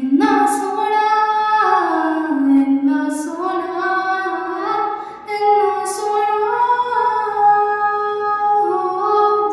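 A woman's voice singing long, held notes that slide up and down between pitches, with little or no accompaniment.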